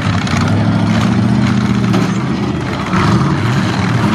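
Demolition-derby pickup truck engines running and revving, with the engine pitch rising and falling and a louder burst of revving about three seconds in.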